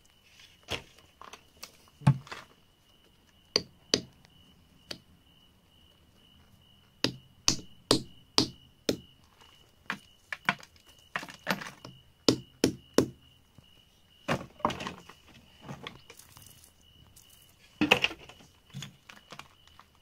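Irregular sharp knocks and taps, some in quick runs of three or four, as a hand-held rock strikes and chips at crumbly wet dirt holding embedded stones. A faint steady high tone sits underneath.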